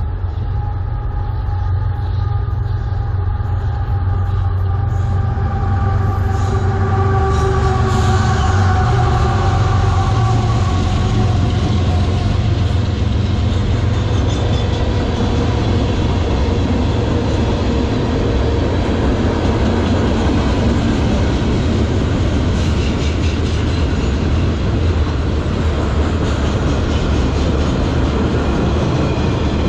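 Freight train of covered hoppers, tank cars and flatcars rolling past at speed: a steady, loud rumble of wheels on rail. In the first ten seconds or so, several faint whining tones slowly drop in pitch.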